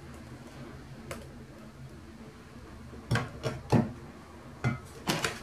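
Metal cake pan knocked several times against a wooden countertop to settle the batter into the pan. A faint click comes about a second in, then a quick run of sharp knocks over the last two seconds or so.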